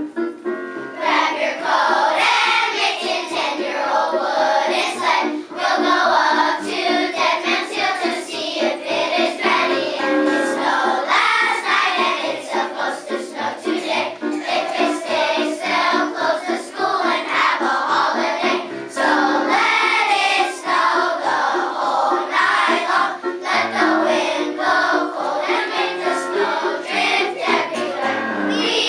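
Children's choir singing a song in unison with piano accompaniment; the voices come in about a second in over the piano.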